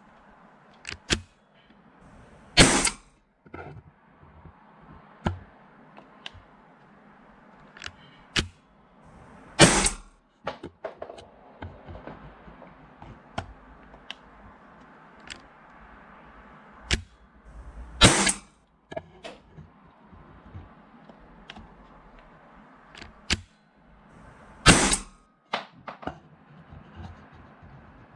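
T4E HDR 68 .68-calibre CO2 revolver firing powdered rubber balls: four sharp shots several seconds apart. Lighter clicks come in between.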